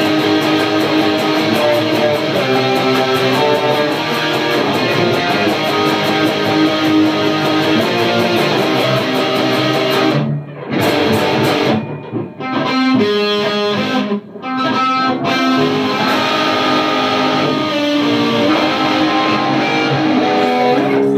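Two electric guitars playing a song together, picked melody and chords. The playing drops out briefly three times near the middle, then carries on.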